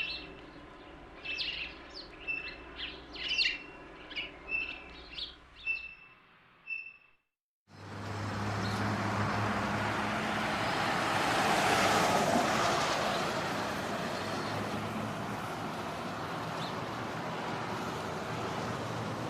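Small birds chirping in short, separate calls, then after a short break in the sound a steady vehicle noise with a low engine hum that swells and then settles.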